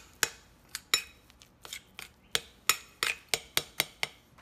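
A spoon clinking against the sides of a glass Pyrex bowl while stirring a chocolate, cocoa and hot-water mixture: about fifteen sharp, irregular clinks.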